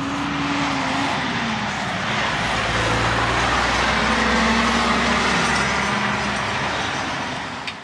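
Heavy truck running nearby: a steady rumble and hiss with a low hum that swells in the middle and slides down in pitch twice, fading out near the end.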